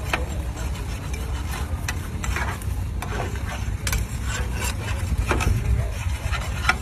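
Steel plough bottoms of a multi-bottom gang plough scraping and crackling through stubble and soil, with irregular clicks over a steady low rumble.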